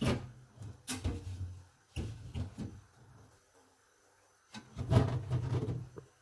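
Fridge door and compartments being handled: a few short knocks and clicks in the first two seconds, then a longer clatter near the end.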